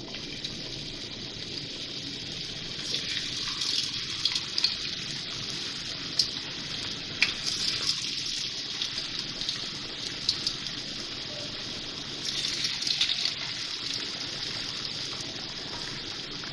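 Batter-coated fish fingers deep-frying in hot oil: a steady sizzle full of sharp crackles and pops. It swells several times as more pieces are slipped into the oil.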